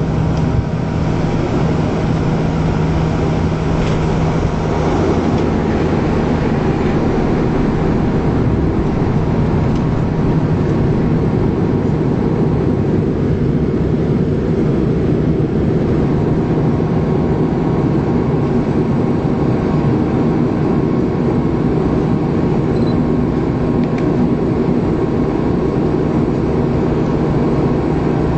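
Bombardier Q400's two Pratt & Whitney PW150A turboprop engines and six-bladed propellers heard from inside the cabin during the landing roll and slowdown: a loud, steady hum with a low rumble that lessens about eight seconds in, and a higher steady tone joining about halfway.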